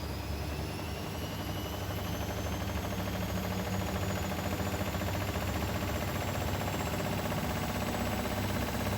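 Bosch Maxx WFL 248Y front-loading washing machine's motor and drum speeding up into a spin, with a whine that rises slowly and gets a little louder.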